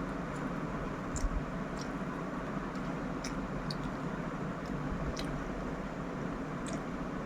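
A person chewing food, with small scattered mouth clicks, over a steady background hiss.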